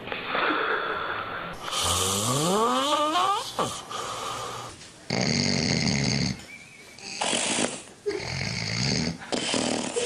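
Snoring from several different sleepers, one clip after another. One snore rises sharply in pitch about two seconds in; from about five seconds on come four separate loud snores, each about half a second to a second long.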